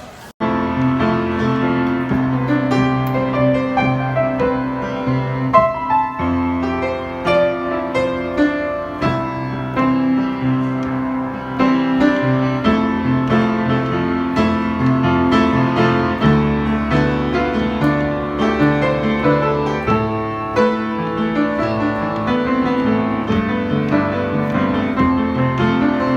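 Piano music, starting abruptly about half a second in and playing on with chords over a bass line.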